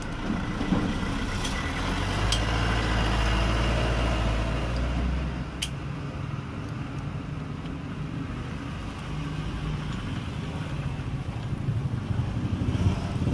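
A motor vehicle engine running with a steady low rumble that swells for a few seconds near the start, with a few sharp metallic clicks of tools on metal.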